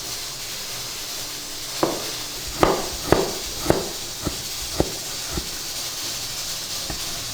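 Steady hiss of cooking on the stove, with a quick run of about eight sharp, briefly ringing knocks of kitchen utensils against cookware from about two seconds in, and one more knock near the end.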